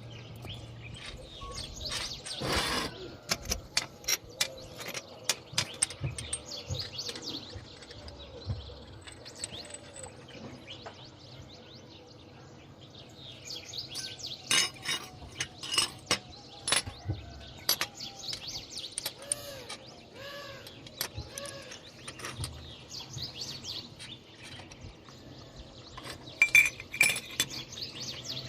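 Scattered metal clinks and knocks from hand work on steel parts, with birds chirping in the background.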